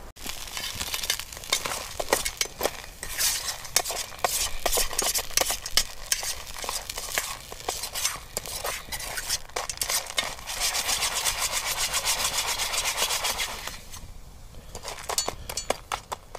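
A metal spoon stirring and scraping piñon nuts in a metal skillet, with many irregular clicks and rattles as the nuts are turned. A sizzle comes from the last of their water cooking off, steadiest for a few seconds past the middle.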